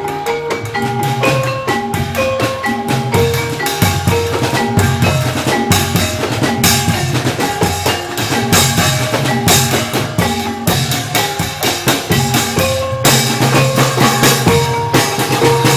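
Live Javanese incling ensemble music: drums beat a driving rhythm under tuned percussion playing a short repeating melody of struck notes.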